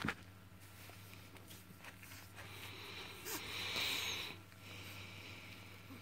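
Yorkshire terrier puppy snuffling, with a short wheezy, hissing breath noise about three seconds in. There is a brief tap at the very start, over a faint steady hum.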